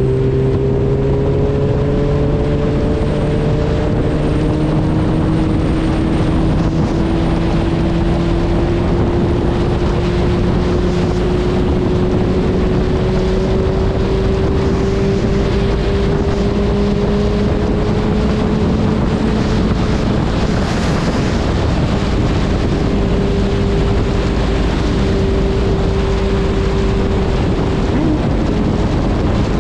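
Suzuki Hayabusa's inline-four engine running at a steady highway cruise, its pitch creeping slowly up, under heavy wind noise on the microphone.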